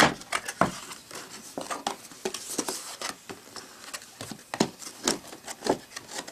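Cardboard packaging being handled: a printed outer sleeve slid off an inner cardboard box, with irregular scrapes, taps and knocks of cardboard.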